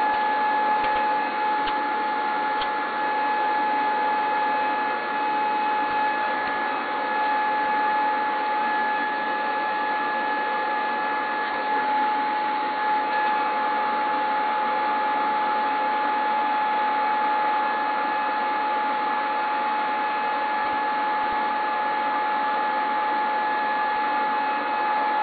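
Steady electronic hiss with a constant high whine running unbroken through it.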